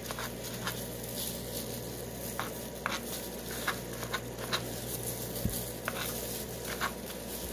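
Kitchen knife cutting chayote on a plastic cutting board: irregular light taps of the blade against the board, about once or twice a second.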